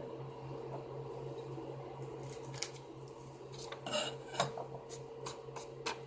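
Small hard objects clinking and clattering against each other in a handful of sharp knocks over the second half, over a steady low machine hum.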